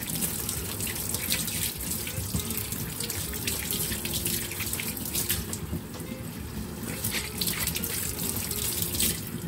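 Kitchen tap running into a sink while ears of corn are rinsed under it, the water splashing off them; the flow stops at the very end.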